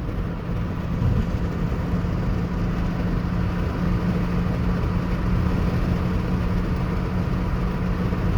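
Steady road and engine noise of a moving car heard from inside the cabin with a window down, a low drone holding a constant pitch.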